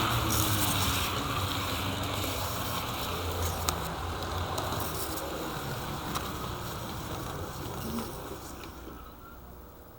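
HO-scale model train running on the track, a steady rumble of wheels and motor with a few sharp clicks, fading away over the last few seconds.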